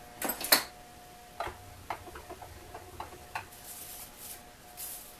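Sharp clicks and crackling snaps of a ribbon of PVC turnings being cut loose and pulled off the pipe by hand on the lathe, with the two loudest snaps in the first second and lighter scattered clicks after.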